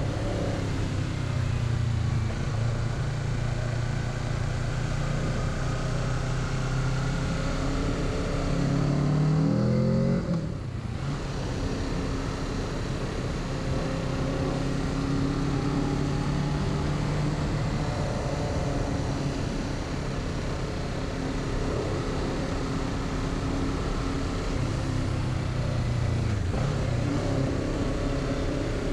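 2021 Kawasaki Z650's parallel-twin engine running under way, rising in pitch about ten seconds in and then dropping sharply as it shifts up a gear. It then runs steady, changing pitch again near the end as it goes back down a gear.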